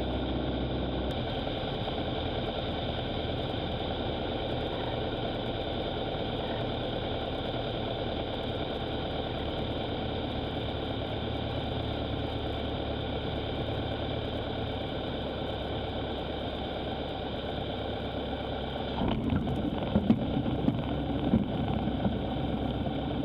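Piper PA-28 Warrior's four-cylinder Lycoming engine heard from inside the cockpit, a steady drone at low landing power through the flare, touchdown and landing rollout. Louder uneven rumbling with a few knocks comes in near the end as the plane rolls along the runway.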